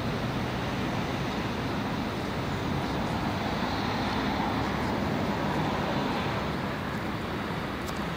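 A steady low rumble with a hiss over it, like a running engine or machinery, even throughout with no distinct events.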